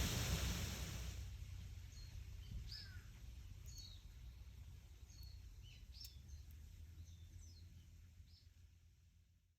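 Wind rustling through leaves, loud at first and dropping away about a second in. Scattered short bird chirps follow over a low wind rumble, and the whole fades out to silence at the end.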